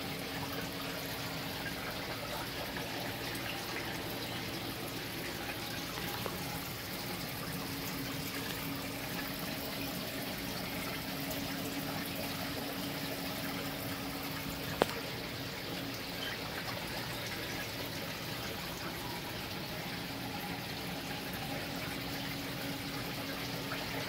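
Steady rush and trickle of water circulating in a saltwater aquarium, under a low steady hum, with one sharp click about fifteen seconds in.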